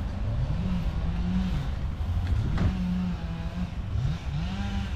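A vehicle engine running, its pitch slowly rising and falling, over a steady low rumble.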